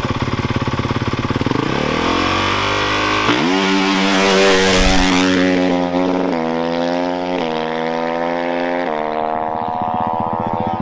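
Four-stroke Honda dirt bike engine idling with a quick, steady beat, then revved and launched hard, accelerating away. Its pitch climbs through each gear and drops back at three upshifts in the second half.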